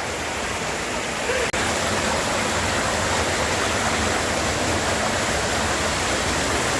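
Stream water rushing and splashing steadily over rocks in a gorge. The sound cuts out for an instant about a second and a half in, then carries on slightly louder.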